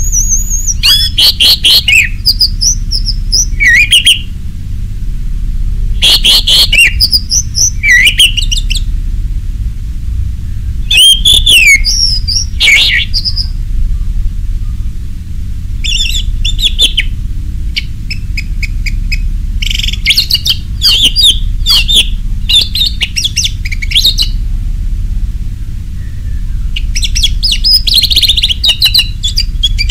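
Orange-headed thrush singing: about six bursts of fast, varied, high whistled phrases, each one to four seconds long with short pauses between, over a steady low background noise.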